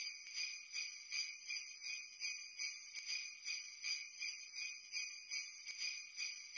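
Jingle bells shaken in a steady rhythm, a little over two shakes a second.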